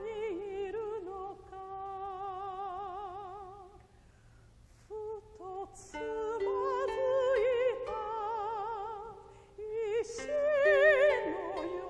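A woman singing long, slow phrases with wide vibrato over a quiet koto-led ensemble. Her line fades out about four seconds in, picks up again near six seconds and swells to its loudest near the end.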